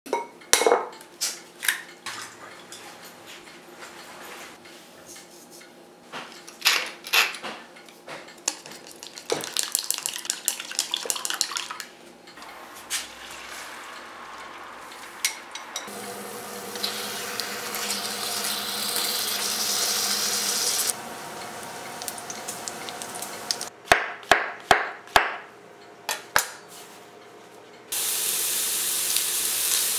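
A run of kitchen sounds: sharp taps of an egg and utensils against a ceramic bowl and dishes, with a quick rattle of clicks partway through. Then steady hissing of beaten egg frying in a nonstick pan, more sharp taps, and a steady sizzle that starts abruptly near the end.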